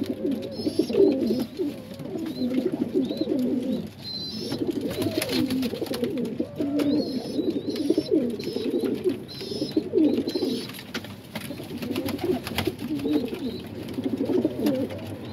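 Several domestic pigeons cooing over one another without a break, the deep warbling coos of males in a loft fight, with scattered sharp taps and scuffles.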